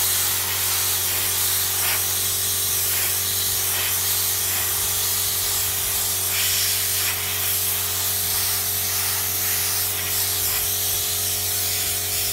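Compressed air hissing steadily from an air-hose nozzle as it is blown through a pleated car AC cabin filter from the back, against the normal airflow, to push the dust out. A steady low hum runs underneath.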